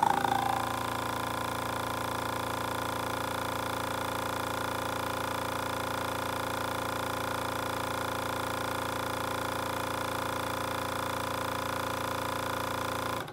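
Electric brake-servo vacuum pump starting the moment its battery lead is clipped on, then running with a steady hum of several tones while drawing vacuum against a port sealed by a finger. It cuts off suddenly near the end as the vacuum switch reaches full vacuum and stops the pump.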